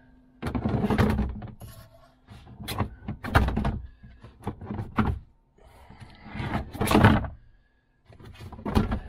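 Plastic cargo-floor trim panels and the spare tire being handled and fitted in the rear cargo well, with an irregular run of knocks, thunks and scraping. The loudest knock comes about seven seconds in.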